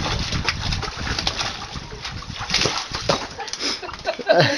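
German shepherd puppy splashing and sloshing the water in a plastic tub with its paws and head, in irregular splashes, with a short louder voice-like cry about four seconds in.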